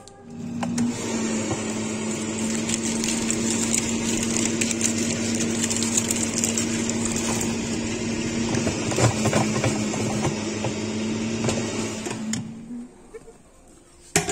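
Air fryer running: a steady whir of its fan with a low hum, cutting off about a second and a half before the end.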